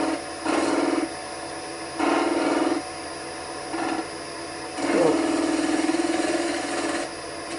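Lathe knife cutting a spinning mahogany blank on a wood lathe, in several separate rasping bursts as the edge touches the wood and comes off it again; the longest cut runs about two seconds from about five seconds in.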